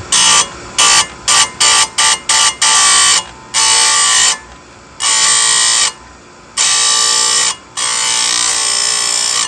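Chain grinder's abrasive wheel grinding a chainsaw chain cutter tooth, throwing sparks. First come about seven quick touches, then several longer grinding passes of about a second each, with a quieter steady sound between them.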